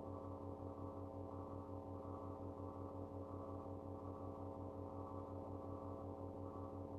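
Steady electrical hum: a low buzz with a stack of even overtones and a faint regular throb, unchanging throughout.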